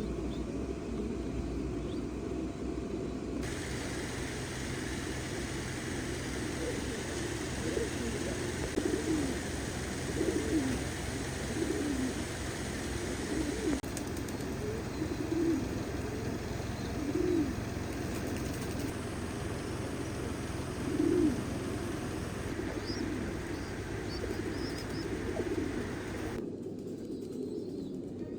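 A flock of domestic pigeons cooing, many short overlapping coos repeating over a steady background hiss.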